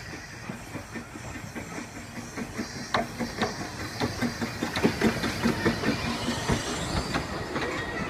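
Narrow-gauge steam train passing at low speed: a run of clicks and knocks from the locomotive and carriages over the track, growing louder from about halfway through as the engine draws level.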